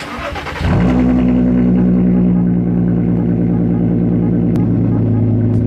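Car engine starting: a short noisy crank, then it catches about a second in and settles into a steady idle.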